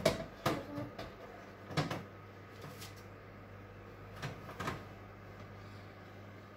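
Metal baking tray clanking and scraping on an oven's shelf runners as it is slid in, a few knocks in the first two seconds and two more about four and a half seconds in, over a steady low hum.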